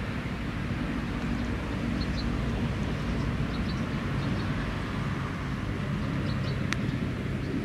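A steady low engine rumble, with a few faint high chirps and one sharp click near the end.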